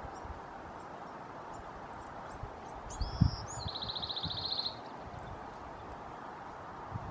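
Bewick's wren singing one song about three seconds in: a few high introductory notes, then a fast, even trill lasting about a second. A short low thump comes just as the song starts, over a steady background hiss.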